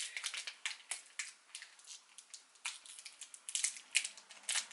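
Close-up eating sounds: irregular wet clicks and crackles of a mouth working on a candy.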